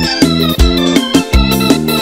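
Electronic keyboard playing an instrumental lead melody in an organ-like sound over sustained bass and a steady beat, with no singing.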